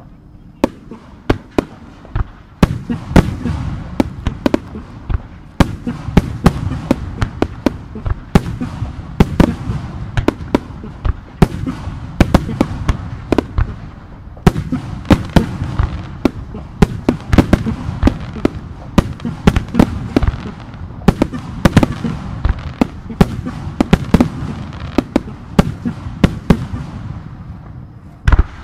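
Fireworks display: aerial shells bursting in a rapid barrage, many sharp bangs a second over a continuous rumble. The bangs begin sparsely, build about two and a half seconds in, and thin out near the end.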